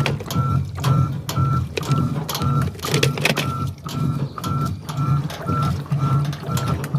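Electrolux LES09 washing machine running with a low pulsing hum, while a short high beep repeats about two to three times a second, mixed with sharp clicks.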